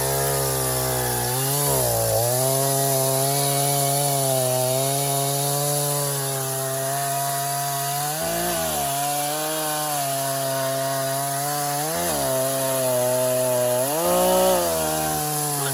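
Echo CS-501P two-stroke chainsaw running at high revs while cutting through a log, its engine pitch swelling and dropping back several times as the chain bites.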